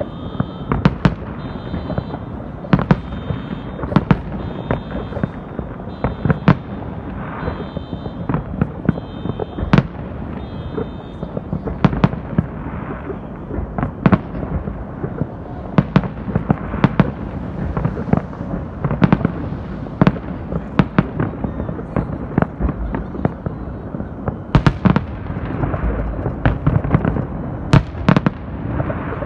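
A fireworks display: aerial shells and rooftop pyrotechnics going off in rapid, irregular succession, sharp bangs one after another over a continuous low rumble.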